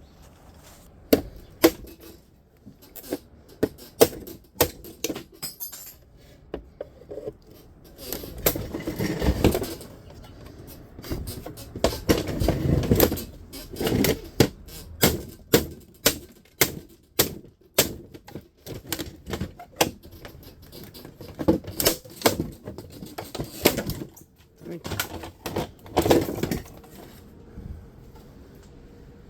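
Irregular sharp clicks and knocks of hand tools working on metal dehumidifier parts during teardown for scrap, with a couple of longer, rougher scraping or rattling stretches.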